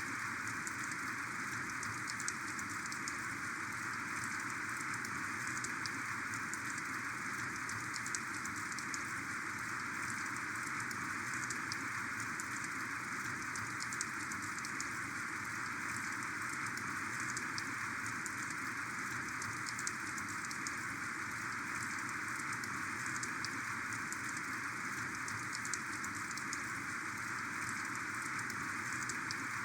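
Heavy rain falling steadily: a dense, even hiss with many small drop ticks throughout.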